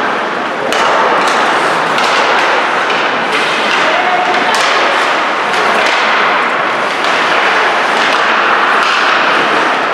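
Ice hockey game noise in an arena: a steady rush of skates and crowd, with many sharp clacks and thuds of sticks and puck on the ice and boards.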